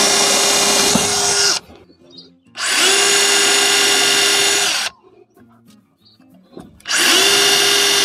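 DeWalt DCH072 cordless rotary hammer in plain drilling mode, with an ordinary drill bit on an adapter, boring pilot holes into a wooden board. It gives three runs of steady motor whine, each spinning up quickly, with short pauses between: the first stops about a second and a half in, and the third starts near the end.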